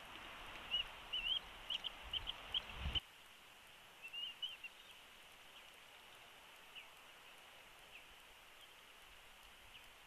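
Bald eagle giving a rapid run of high chittering calls, then a shorter run about four seconds in and a few single notes after. Wind rumbles on the microphone under the first calls and cuts off suddenly about three seconds in.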